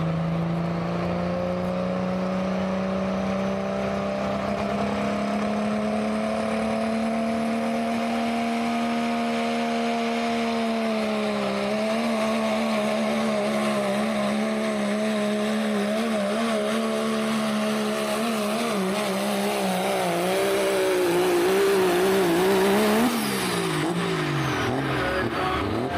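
Diesel pickup of the 3.0 pulling class running at full throttle under load on a pull. The engine's drone climbs slowly in pitch, then wavers up and down from about halfway. Near the end it drops off sharply as the throttle is let off, and a high whine falls away.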